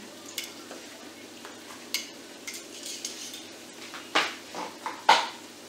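Kitchen clatter of metal tongs and dishes: light clinks, then two sharper knocks about four and five seconds in, the second the loudest.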